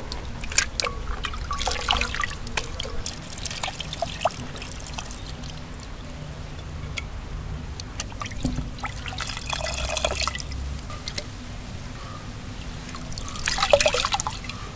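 Water trickling and dripping, with scattered small splashes and clicks and a louder burst of splashing near the end.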